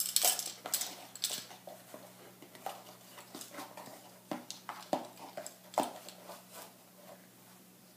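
A measuring spoon scraping and tapping inside a cardboard box of baking soda as it is scooped: a quick run of clicks and rustles in the first second or so, then a few single light knocks.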